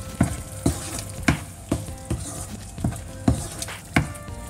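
Wooden spatula stirring thick, creamy paneer curry in a wok, knocking against the pan about twice a second, over a steady sizzle from the simmering gravy.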